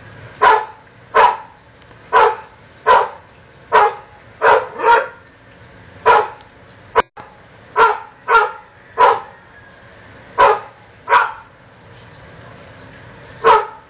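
A small animal calling over and over in short, sharp, high calls, roughly one a second and sometimes in quick pairs, with a pause of about two seconds near the end. A single sharp click comes about halfway through.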